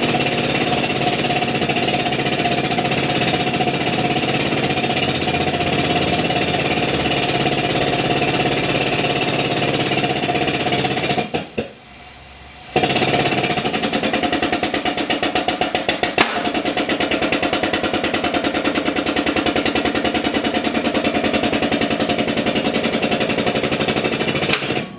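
A power tool running with a rapid, even rattle of strokes and a steady tone over it, in two long runs with a short stop between them about eleven seconds in.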